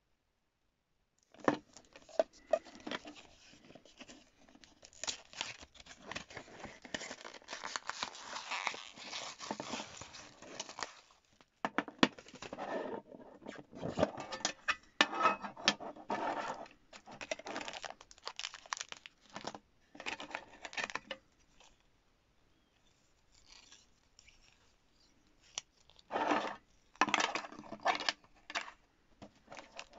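Hands unpacking a toy clay kit: rustling, scraping and tearing of the cardboard packaging and a metal tin being handled, then sharp clicks of hard plastic moulds being set down near the end. It starts after about a second and a half of silence and goes in irregular bursts of clicks and scrapes.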